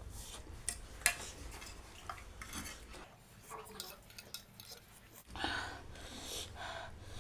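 Metal fork clinking and scraping on a ceramic plate, with a sharp clink about a second in. Near the end, mouth sounds of eating noodles.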